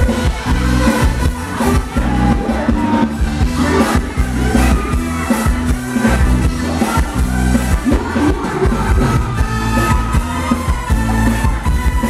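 A live band plays Thai ramwong dance music through a PA system: a steady beat and bass line, with a singer's voice.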